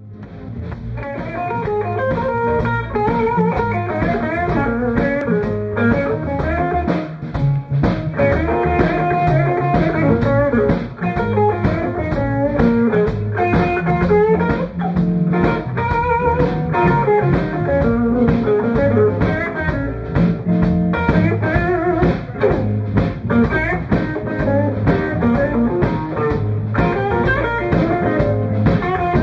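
Live blues band playing: electric guitars, electric bass and a drum kit. The music fades up over the first couple of seconds, then runs loud and steady.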